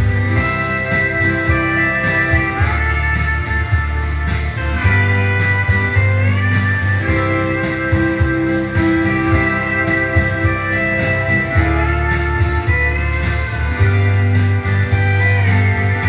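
Instrumental break of a country-style song with no singing: a guitar lead with notes that slide in pitch over a steady bass line.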